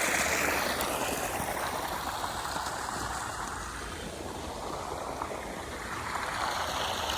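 Steady rush and splash of water sprayed from a hose onto a concrete foundation, the hiss easing a little in the middle and picking up again near the end.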